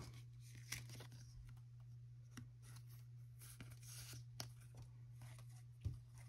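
Faint rustling and soft ticks of a trading card being slid into a thin plastic sleeve and handled, with a few light taps as cards are set down. A steady low hum sits underneath.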